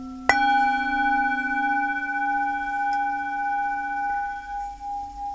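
Tibetan singing bowl struck once, about a third of a second in, then ringing with a low, wavering tone and several higher overtones. The highest overtones die away within a few seconds while the lower tones keep sounding.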